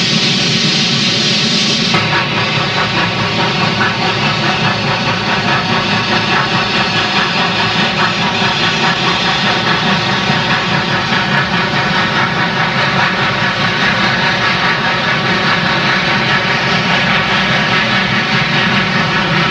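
Norfolk & Western articulated steam locomotive working under load, its exhaust beating in a steady, rhythmic chuff over a continuous roar.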